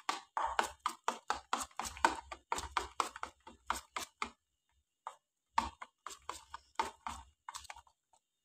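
Spoon beating thin gram-flour (besan) batter in a steel bowl: quick rhythmic strokes, about three or four a second, as the batter is whipped for a couple of minutes to lighten it. The strokes pause briefly around halfway, then resume.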